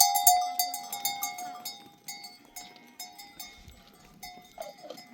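Bells worn by grazing sheep clanging irregularly as the flock moves, loud at first and fading over the first couple of seconds, then continuing faintly.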